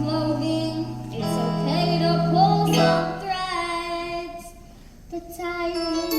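Musical-theatre song: a child singing over a recorded accompaniment with long held bass notes, the music dropping away briefly about five seconds in.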